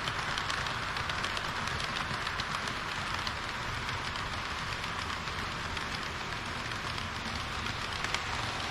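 HO-scale model train running on its track, heard close up: a steady, gritty hiss of small metal wheels rolling on the rails, with fine rapid clicking.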